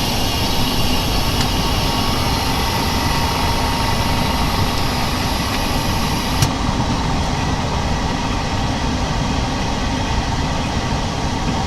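Screen laminating machine's pump running steadily while it presses the LCD under pressure, with a higher hiss that cuts off about six and a half seconds in.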